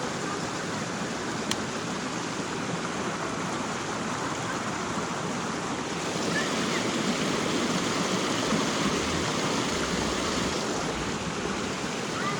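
Creek water running over rocks: a steady rush that grows a little louder about halfway through, with one brief click early on.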